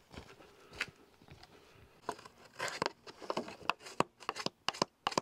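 Knife shaving a thin wooden sheathing strip for a birch bark canoe, clamped in a shaving horse: quick, sharp cutting strokes begin about two seconds in and settle to about four a second near the end.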